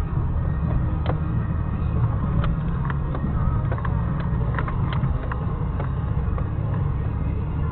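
Car driving over a rough dirt track, heard from inside the cabin: a steady low engine and road rumble with scattered knocks and rattles as the car bumps over the ground.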